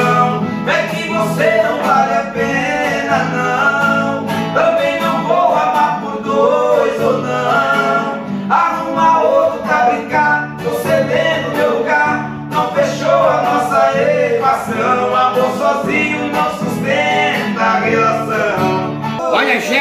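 Male voices singing a romantic song to strummed acoustic guitar, with a steady bass line underneath.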